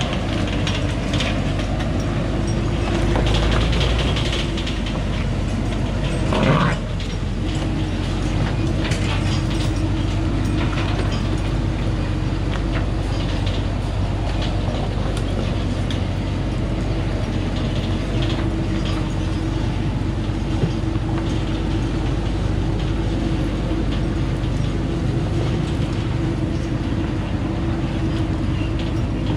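Thaco Forland truck's diesel engine running steadily under load as the truck climbs a rocky track, with the steel cargo body and chains rattling and clattering over the stones. A brief louder noise comes about six and a half seconds in.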